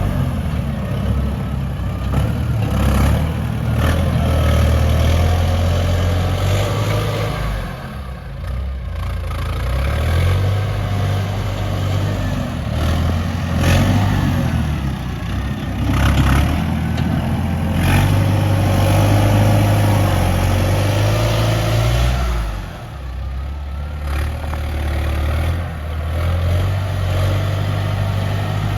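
Heavy diesel earthmoving machinery running, the engine swelling and easing with load, with several sharp clanks along the way.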